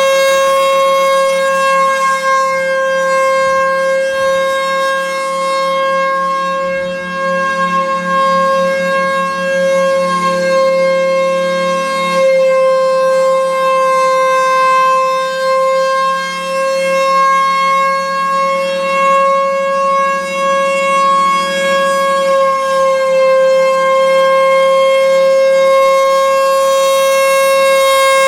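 Federal Signal Thunderbolt 1000A electromechanical warning siren sounding its steady alert tone: one held pitch that swells and dips slightly in loudness.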